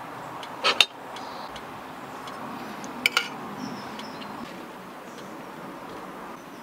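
Tableware being handled: a short knock about a second in, then a spoon clinking twice against a ceramic bowl about three seconds in, over a steady faint hiss.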